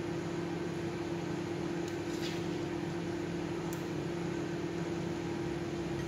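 Steady hum of a running kitchen appliance, with a few faint scrapes and clinks of a spoon scooping cooked chicken from a wok into a ceramic bowl.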